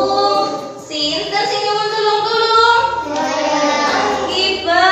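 Children singing a song together with a woman, in long held notes.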